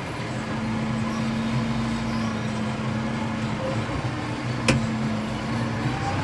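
Valtra N141's 4.9-litre SISU diesel engine running steadily, heard from inside the tractor's cab while it is driven. A single sharp click comes about three-quarters of the way through.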